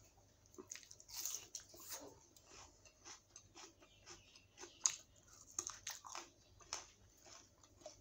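A person chewing and biting a mouthful of rice and dal eaten by hand, close to the microphone: irregular soft mouth clicks and small crunches, with one sharper click about five seconds in.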